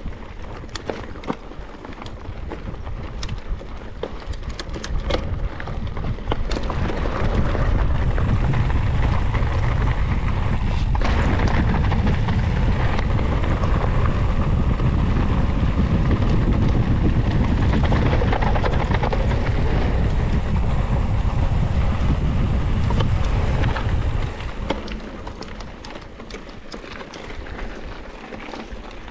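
Mountain bike rolling fast over a dirt trail, with wind rushing over the onboard microphone. It gets louder a few seconds in, holds steady, and drops back near the end, with scattered clicks and rattles in the quieter stretches.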